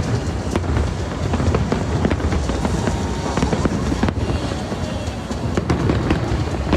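Fireworks display: a continuous barrage of low booming bursts with many sharp bangs and crackles over it.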